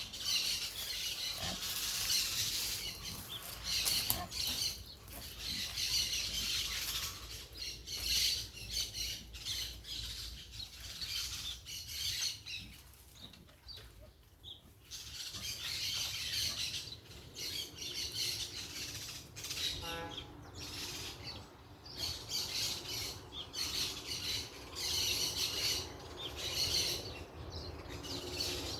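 A flock of parakeets chattering and squawking in repeated bursts of shrill calls, with a short lull about halfway through.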